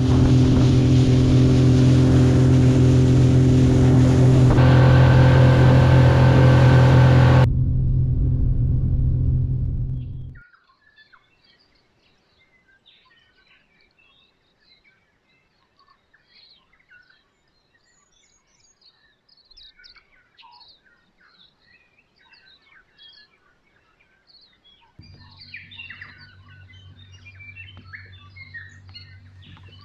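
Small fishing boat's motor running under way, with wind and water rush, loud and steady for about ten seconds before cutting out. Faint bird chirps follow, and a low steady motor hum starts again near the end.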